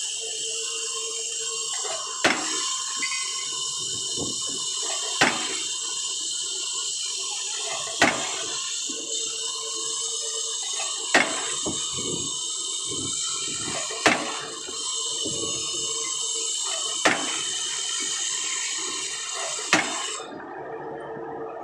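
Diesel pile hammer striking a concrete spun pile: seven sharp blows about three seconds apart, over a steady hiss that stops near the end.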